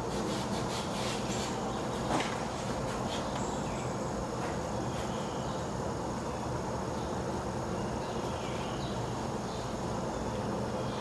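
Steady high-pitched insect chirring over a low, even background hum, with a faint click about two seconds in.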